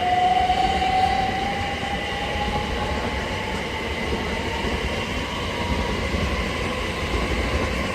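Class 387 Electrostar electric multiple unit pulling away, its traction motor whine slowly rising in pitch as it gathers speed over the rumble of the train.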